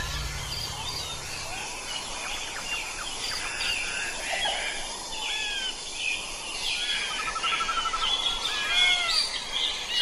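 Several small birds chirping and calling over a steady hiss, many short rising and falling whistled notes overlapping, with a rapid trill about seven seconds in. A low rumble sounds during the first second or so.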